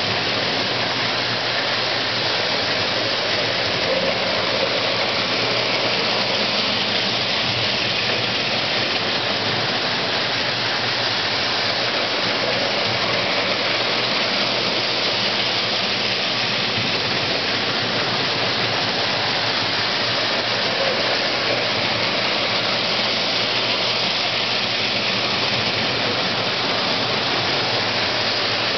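Postwar Lionel 675 toy steam locomotives running on O27 tinplate track: a steady, even rumble of the motors and metal wheels on the tin rails, with a faint low hum underneath.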